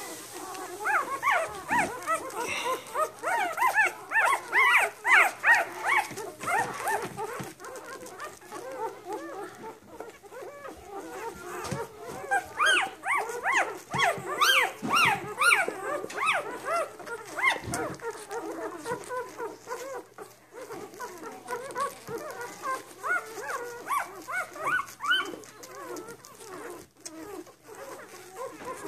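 A litter of one-week-old golden retriever puppies squeaking and whimpering as they nurse: many short, high squeaks overlapping. They come in busy spells near the start and around the middle, with a lighter spell near the end.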